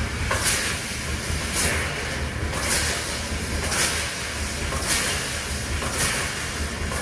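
Amada LCG AJ 2.1 kW fibre laser cutting 1.5 mm mild steel: the cutting head hisses in short bursts about once a second, evenly spaced, as it cuts one small feature after another, over a steady low machine hum.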